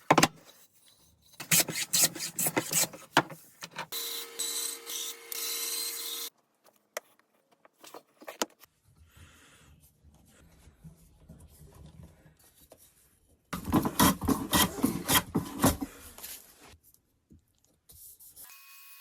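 Woodworking on scrap wood: bursts of rapid rubbing and rasping strokes on wood, with a few seconds of steady machine noise about four seconds in.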